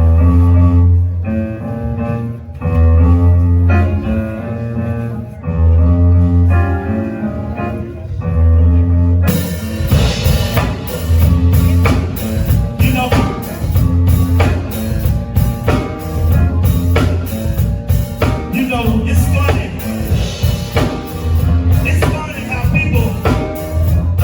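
Live band playing: held keyboard chords over strong bass notes, then about nine seconds in the drum kit comes in and the full band plays on a steady beat.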